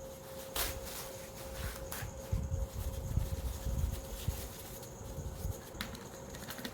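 Small hand-handling noises from bench work on a mouse's parts: a few sharp clicks and low rubbing, over a steady faint electrical hum.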